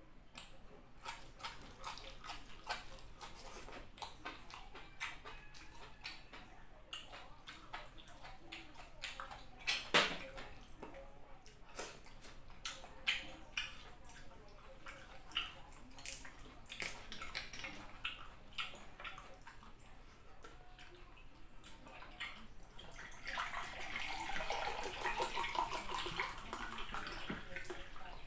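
Close-miked eating sounds: scattered wet mouth clicks and smacks of chewing clams and leeks, with one sharper clack about ten seconds in. Near the end comes a few seconds of steady liquid sound from iced tea in a glass mug.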